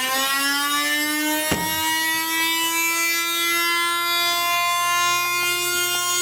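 Old washing machine's electric motor running with a steady, high-pitched whine that rises slightly in pitch, with one sharp knock about a second and a half in.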